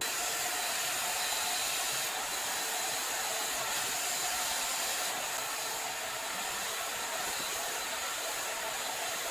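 Agaro volumizing hot air brush (a brush-head hair dryer) running steadily and blowing hot air while it dries a section of hair, with a faint motor whine under the airflow. It switches on abruptly at the start.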